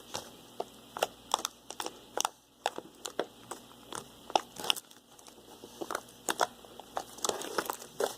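Fluffy marshmallow slime made with shaving cream being squished and stretched by hand, giving irregular sharp crackles and pops, a few each second.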